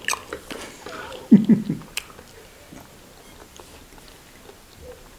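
Close-mic mouth sounds of chewing and biting into fried potatoes and beef, with small wet clicks. A short, loud voiced sound comes about a second and a half in.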